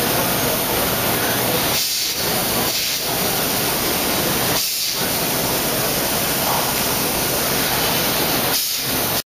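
Steady, loud hiss of a PADE CNC machining centre at work on a wooden moulding, the noise dipping briefly four times.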